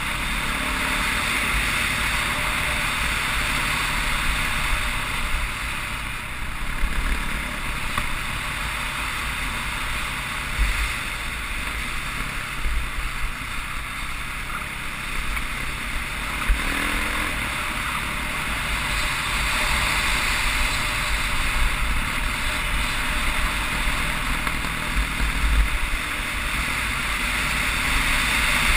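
Dirt bike being ridden, heard from a helmet-mounted camera: the engine's steady drone half buried under wind rush, its pitch rising briefly a couple of times, with a few scattered low thumps.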